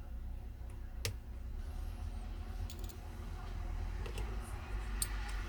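Small, sparse clicks and ticks of a precision screwdriver working the tiny screws out of an iPhone X's internal bracket, with a sharp click about a second in and the loudest one near the end, over a low steady hum.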